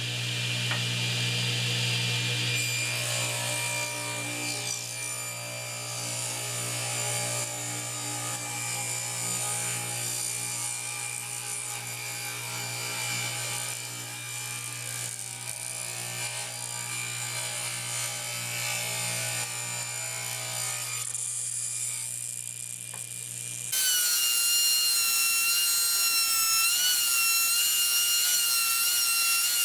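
Table saw running and ripping a pine strip, a steady motor hum under the cutting noise. About 24 seconds in it gives way abruptly to the high whine of an old Craftsman router in a router table, wavering slightly as it cuts a finger groove in a pine strip.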